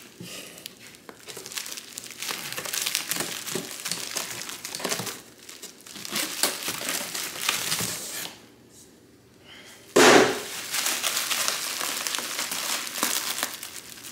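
Plastic packaging bags crinkling as they are handled and opened by hand, with a brief lull and then a sudden loud thump about ten seconds in, followed by more crinkling.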